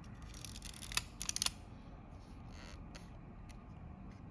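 Kodak Retina IB's leaf shutter fired at its 1-second setting: a short high whirr of the timing mechanism, then a sharp click about a second in, followed quickly by a few lighter clicks.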